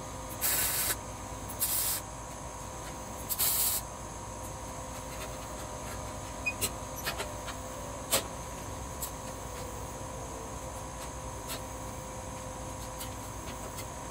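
Three short bursts of welding arc hiss in the first four seconds, each under half a second: tack welds on a steel grill door. A steady background hum with a few light clicks follows.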